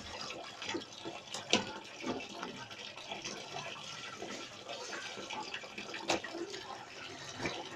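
Water sloshing and splashing as wet clothes are worked by hand in a washing machine tub, with a sharp knock about a second and a half in and another about six seconds in.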